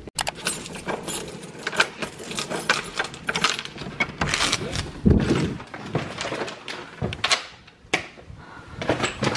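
Keys jangling and a door's lever handle and latch worked as a door is opened, among close rustling and knocks of things being handled, with a heavier thud about halfway through and a sharp click near the end.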